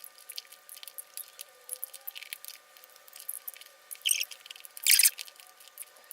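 Small wet clicking and sucking mouth sounds from someone working a large chili-filled tamarind hard candy in the mouth, with two louder brief bursts about four and five seconds in.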